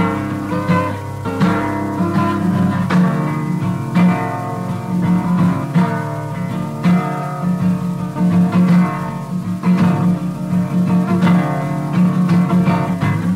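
Background music: an acoustic guitar played with plucked notes over a repeating low bass note.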